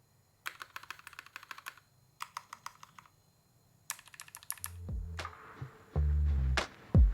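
Typing on a Haus 65 mechanical keyboard with lubed vintage Cherry MX Black linear switches in an aluminium top-mount plate: three bursts of rapid keystrokes with short pauses between. About four and a half seconds in, electronic music with a deep pulsing beat starts.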